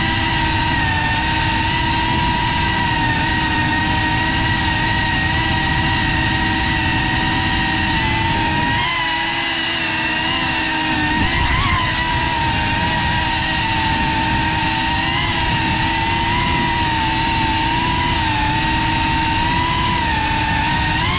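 Brushless motors and propellers of a GEPRC CineLog35 3.5-inch ducted FPV drone whining steadily in flight, the pitch wavering as the throttle changes, with a lower-pitched patch in the middle and a downward bend near the end.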